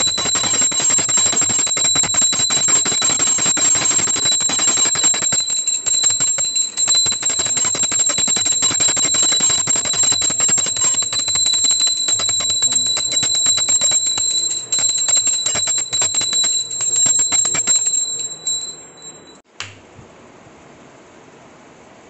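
Puja bell rung rapidly and continuously during the aarti, its clapper striking many times a second over a steady high ring. It stops near the end, followed by a single click.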